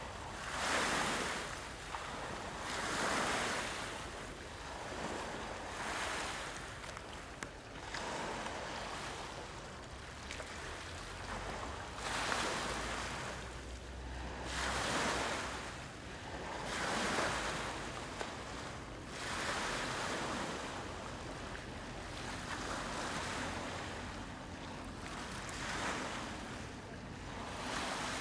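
Small lake waves washing onto a pebble beach, the wash swelling and fading every two to three seconds.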